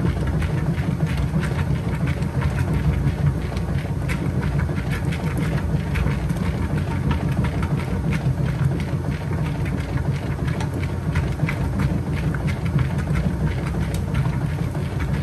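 Kenmore 80 Series top-loading washing machine agitating on its Heavy Duty wash: a steady low motor and transmission hum with frequent small clicks.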